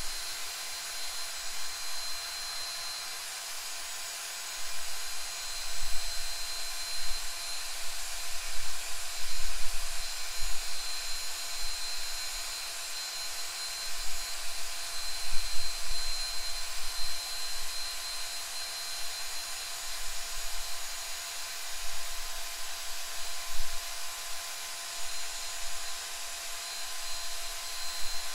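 Cordless drill running steadily with a mixing attachment, stirring epoxy resin in a plastic cup, with a steady high motor whine.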